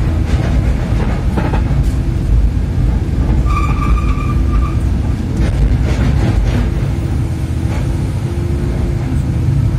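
Excavator's diesel engine running steadily, heard from inside the operator's cab as the arm and bucket move and the machine swings, with scattered knocks. A brief high tone sounds about three and a half seconds in.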